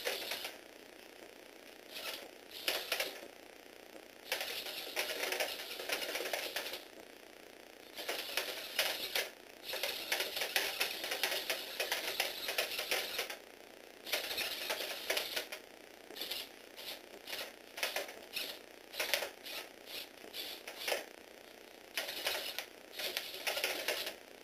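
Lego Technic walking robot dog driven by a small Tomy Aero Spider toy motor: clattering of its plastic gears and legs on the tabletop in bursts that start and stop again and again. The bursts run several seconds at a time in the first half and become a string of short ones in the second half.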